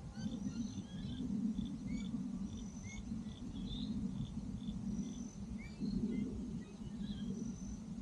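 Birds calling outdoors, short chirps and whistles over a run of evenly repeated high pips, with a steady low rumble underneath.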